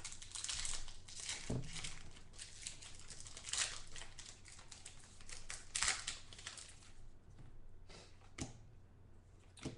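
Crinkling and rustling of card packaging and trading cards being handled, in irregular bursts that are louder in the first six seconds and quieter after that.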